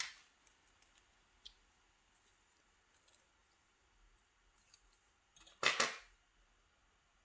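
Small metal clicks from a lock and its picking tools being handled, then a brief louder metallic scrape and rattle about five and a half seconds in, as a tensioner is fitted to turn the lock's plug.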